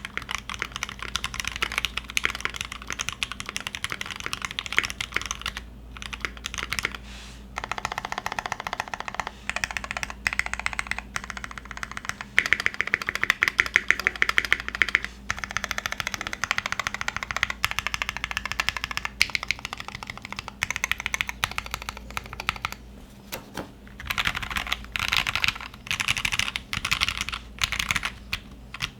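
Continuous fast typing on a Cannonkeys Satisfaction75 mechanical keyboard with lubed Gateron Ink Black linear switches on a brass plate and GMK keycaps: a dense run of keystroke clacks with a few short pauses.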